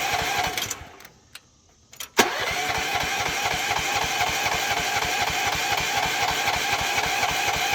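The Rippa Mule Trac mini excavator's small gasoline engine runs with an even beat, then dies out about a second in. After a couple of faint clicks a sharp clunk comes, and the engine turns over again and keeps going steadily. It is an engine that will not stay running.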